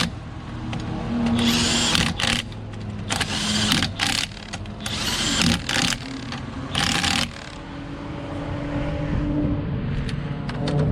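Power impact wrench run in four short bursts on the car's wheel lug nuts during a tire change, over a steady low hum.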